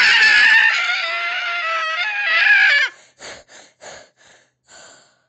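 A long, high-pitched squeaky fart sound that wavers in pitch and cuts off suddenly about three seconds in, followed by five short sputtering puffs that fade away.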